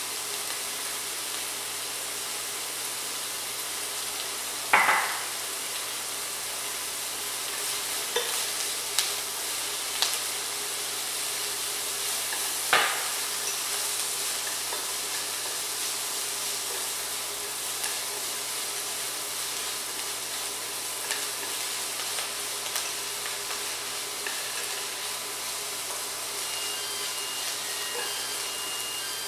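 Parsley and dried tofu sizzling in a nonstick pan as they are stir-fried with wooden chopsticks: a steady frying hiss, with a few sharp knocks of utensils, the loudest about five seconds in.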